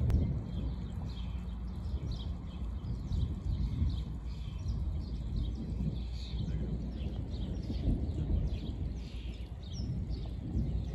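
Storm wind gusting on the microphone as a steady, uneven rumble, with birds chirping throughout.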